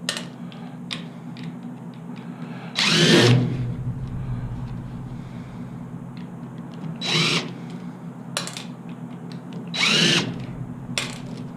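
Power drill run in three short bursts, spinning up and winding down each time, backing screws out of aluminum poles.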